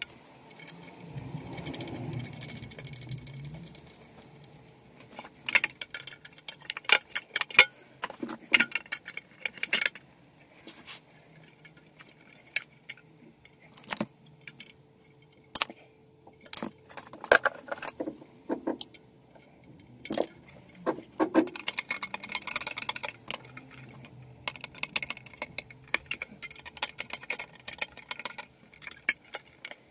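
Irregular clicks, taps and light metallic rattles of hand work inside a steel consumer-unit enclosure: cable cores and earth sleeving being handled, and near the end a screwdriver working at the terminals.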